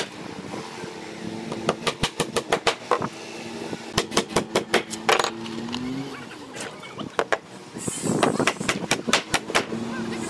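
Claw hammer driving nails into plywood formwork panels: quick runs of sharp, ringing strikes in several bursts. A motor runs steadily underneath.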